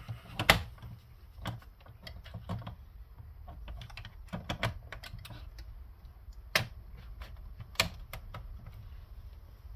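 Irregular clicks and knocks of a cassette deck's metal-and-plastic tape transport mechanism being worked back into its chassis by hand, with a few sharper knocks among the lighter taps.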